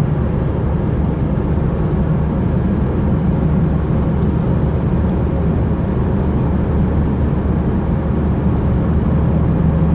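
Chevrolet S10 pickup driving at road speed with a steady low growl from the drivetrain, a little stronger near the end. The driver suspects a worn differential, and notes the growl is worse in right-hand curves than left.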